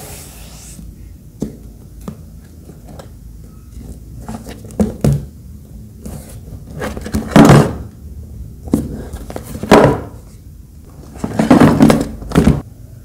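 Hands handling a cardboard gift box: a few light knocks and taps, then, in the second half, three louder bouts of scraping and thudding as the box is turned and its lid is lifted.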